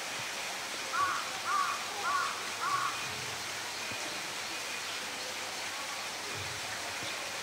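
A bird gives four short calls in quick succession, about 0.6 s apart, over a steady background rush.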